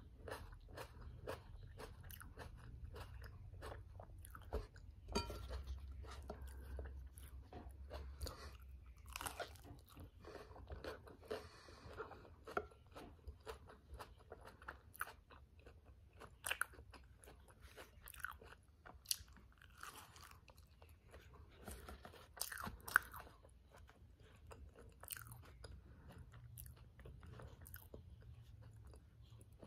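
Close-miked eating of a tortilla wrap filled with black beans, lettuce and tomatoes: irregular sharp crunches and wet chewing sounds, with one louder crunch about two-thirds of the way through, over a steady low hum.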